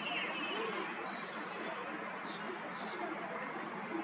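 Small birds giving a few short chirps, one right at the start and another about two and a half seconds in, over a steady outdoor background hiss.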